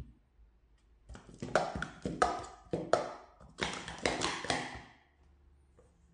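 Plastic speed-stacking cups clattering in quick succession as three sets of three are upstacked into pyramids and downstacked again, a rapid run of sharp clicks and knocks. A single short knock comes right at the start.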